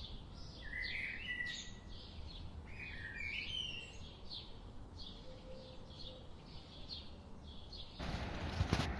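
Songbirds outdoors: a short high chirp repeated about twice a second, and another bird singing a warbling phrase twice over a low steady background rumble. About a second before the end the sound cuts abruptly to a louder, even noise with a single sharp knock.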